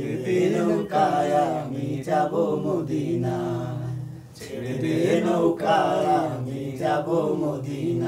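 A man singing a Bengali folk song unaccompanied, with long drawn-out notes.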